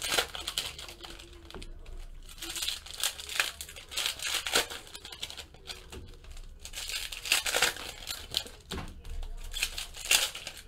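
Foil wrappers of 2016 Donruss Optic baseball card packs being torn open and crinkled by hand: a run of irregular short crackling and rustling sounds with a few sharp clicks.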